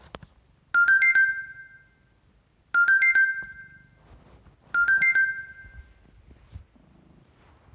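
Smartphone notification chime sounding three times, about two seconds apart: each a quick run of a few bright electronic notes that rings out and fades.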